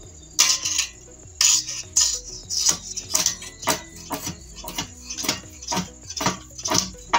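Iron crowbar rammed down inside an upright bamboo pole, knocking out the node walls that partition the tube: a run of sharp knocks, about two or three a second, over faint background music.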